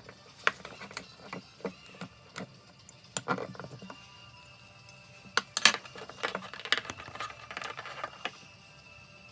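Irregular metallic clicks and knocks from hand work on car door-check parts, with the loudest cluster of knocks a little past the middle.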